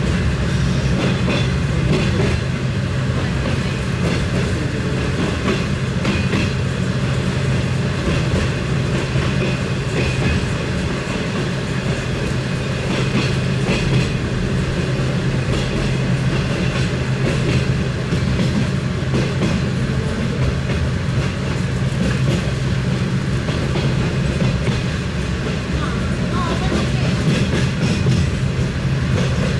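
San Martín line commuter train running along the track: a steady low rumble with irregular clicking of the wheels over the rails.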